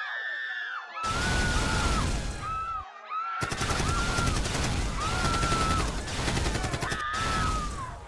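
Rapid machine-gun fire sound effect in long bursts, breaking off briefly twice, from the robot monster's arm cannon, with people's high wavering screams over it.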